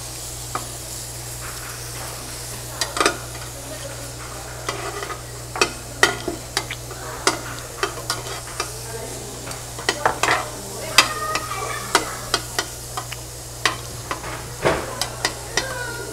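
Meat sizzling on a tabletop barbecue grill, with metal tongs clicking and scraping against the grill many times.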